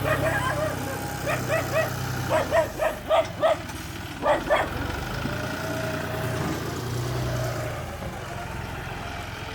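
A dog barks about ten times in quick, uneven bursts over the first half. Underneath, a bulldozer's diesel engine runs with a steady low drone.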